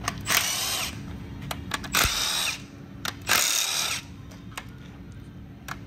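Milwaukee 3/8-inch stubby cordless impact wrench spinning out the oil pump bolts on a GM 6.2 V8 block, in three short bursts of about half a second each, its motor whine rising and falling within each burst.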